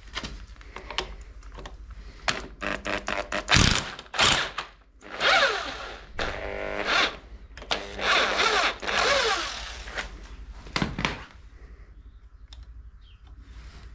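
Cordless power tool on the flywheel nut of a 2003 Honda CRF450's magneto, run in several short bursts with a quick run of clicks before them. It is trying to break the nut loose, and the nut is holding.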